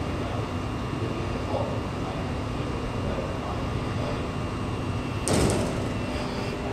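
Steady hum of a stationary Tangara electric train at the platform, its on-board equipment running, with a short loud hiss about five seconds in.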